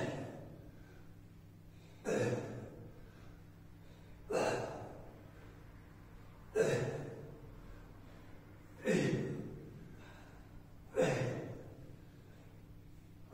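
A person's heavy, forceful breaths during kettlebell exercise: a sharp exhale about every two seconds, one with each repetition, each fading over about a second, the sign of hard exertion partway through the workout.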